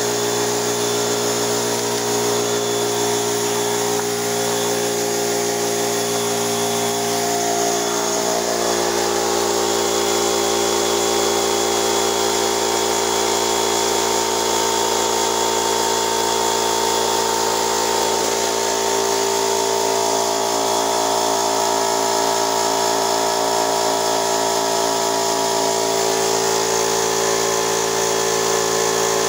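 Husky 1.5 HP, 3-gallon portable air compressor running steadily after being switched on, its motor and pump building pressure in the tank.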